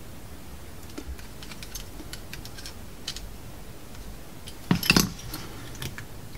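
Light metallic clicks and taps of tools and small parts while a cassette deck's small 12 V DC motor is worked on to get it off and open, with a louder clatter of several sharp clicks about five seconds in.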